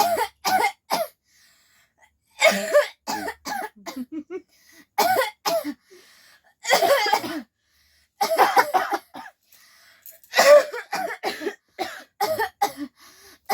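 A girl and a woman coughing over and over in short fits of two to four coughs with brief gaps between. The girl's cough is a real one, brought on by a cold.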